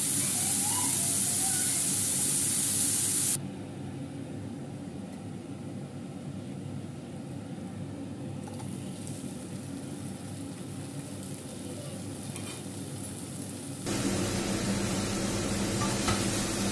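Button mushrooms sizzling as they fry in a pan, a loud hiss that drops away after about three seconds. Near the end a louder steady noise with a low hum starts.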